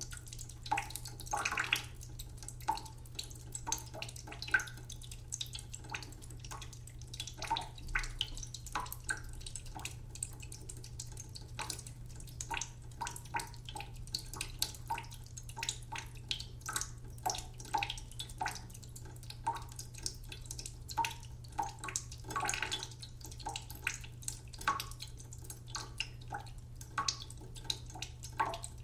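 Water dripping from a tap: irregular drips, a few each second, each a short plink, some with a brief ringing tone, over a steady low hum.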